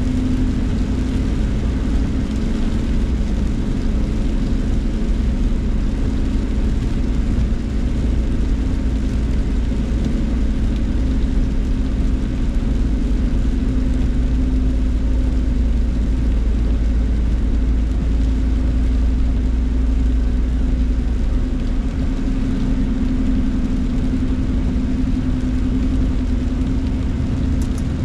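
Steady road noise inside a moving car on a wet highway: tyres on wet pavement and the engine, with a low rumble and a constant hum. The deepest part of the rumble eases about three-quarters of the way through.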